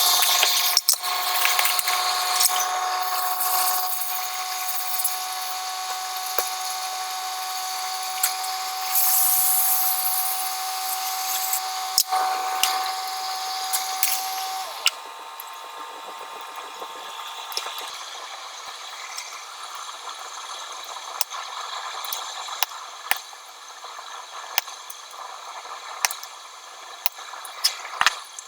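A small electric tool motor whines steadily with a hiss for about fifteen seconds, then stops. Scattered clicks and light taps follow.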